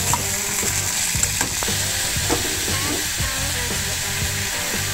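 Sliced mushrooms sizzling steadily in hot olive oil in a frying pan while being stirred.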